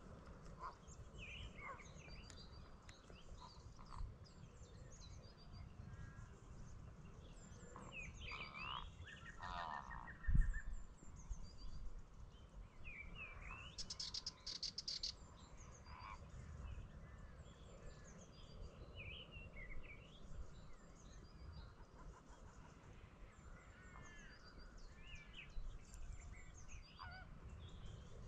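Several wild birds calling, with many short chirps and whistled notes. A buzzy, rattling call comes a little after 8 s and a harsher run of rapid strokes around 14–15 s. A low rumble runs underneath, and a single thump about 10 s in is the loudest moment.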